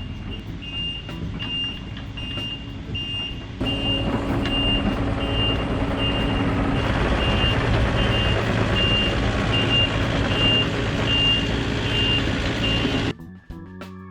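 Compact excavator's travel alarm beeping steadily, a little under two beeps a second, over its diesel engine running. The engine gets louder about four seconds in, and the sound drops away suddenly near the end.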